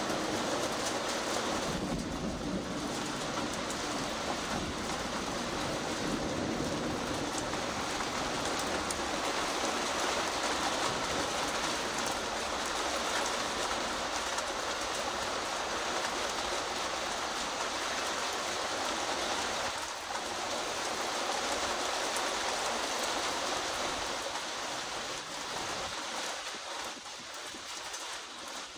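Steady rain falling, an even hiss that eases slightly near the end.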